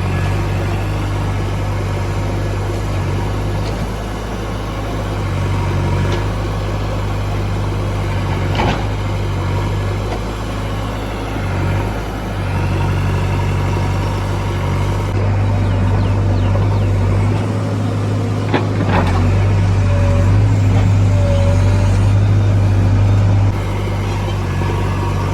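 JCB 3DX Super backhoe loader's diesel engine running steadily with a deep hum, growing louder in the second half and dropping back suddenly near the end as the load changes. A few sharp knocks come through, about 9 and 19 seconds in.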